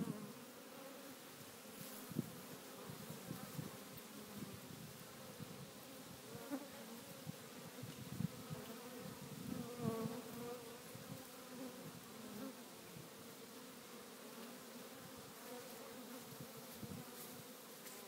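A swarm of African honey bees buzzing, a steady many-bee hum with brief louder swells now and then.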